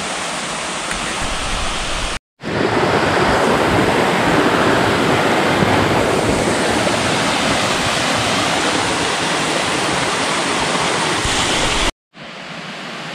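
Steady rush of a rocky mountain stream, with water running over stones. The sound cuts out briefly twice, about two seconds in and near the end, and is loudest in the long middle stretch.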